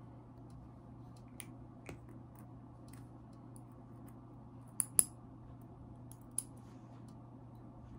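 Small metallic clicks of a needle driver and forceps handled while suturing a silicone practice pad, scattered and irregular over a low steady hum. A sharp double click about five seconds in is the loudest, with another click a little later.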